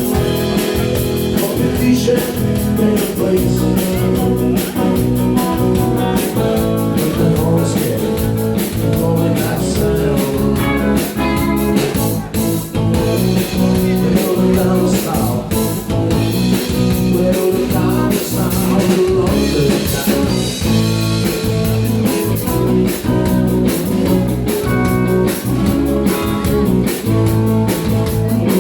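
Live country band playing with electric guitar and drum kit at a steady beat, with a singer's voice at times.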